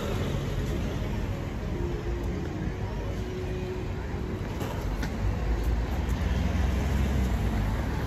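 Street ambience beside a seaside road: a steady low rumble of passing traffic, with a few faint clicks.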